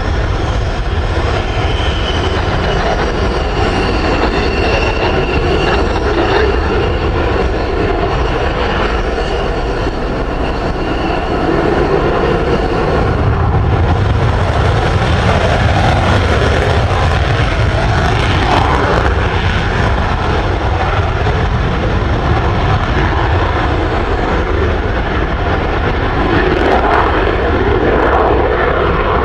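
F-16 fighter jets' Pratt & Whitney F100 turbofan engines running at high power on the runway: a loud, continuous jet roar with a high turbine whine over the first several seconds. From about halfway through, the low rumble grows heavier as an afterburner take-off run gets under way.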